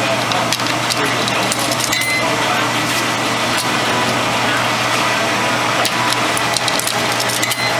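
Steady loud din of coin-laundry washing machines and dryers running, with a constant low hum and scattered small clicks and clatters, and faint voices in the background.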